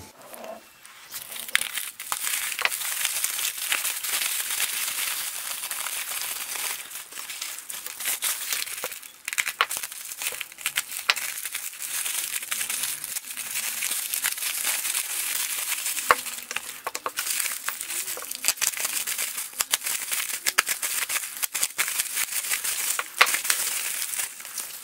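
Plastic bubble wrap crinkling and rustling as hands unwrap packed parts, with many small crackles throughout.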